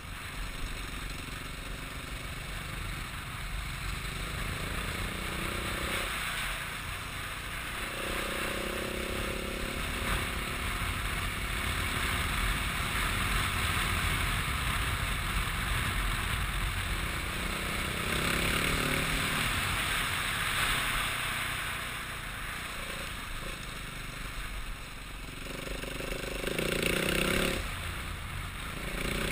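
A vehicle running, with steady road and wind noise; an engine tone swells at times.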